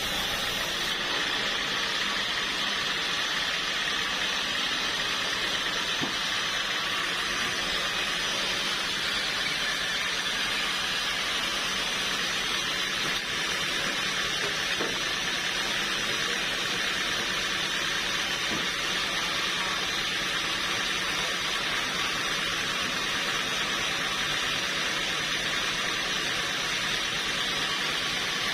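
Sawmill machinery running steadily, a constant high-pitched hiss that holds level throughout.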